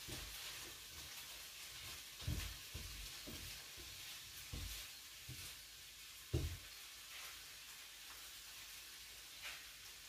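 Frying pan sizzling quietly as whole coriander seeds toast in it, with a utensil knocking against the pan several times, loudest about six seconds in.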